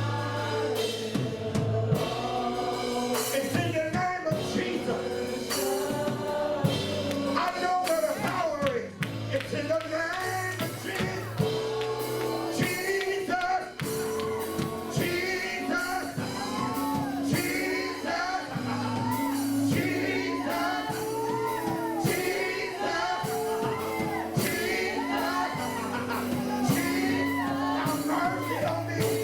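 Gospel worship song: a group of voices singing over a band with held keyboard and bass notes and drums.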